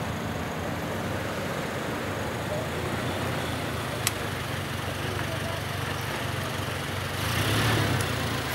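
4x4 SUV engines running at low speed on a dirt track: a steady low engine hum, growing louder near the end as a second SUV comes close. A single sharp click about four seconds in.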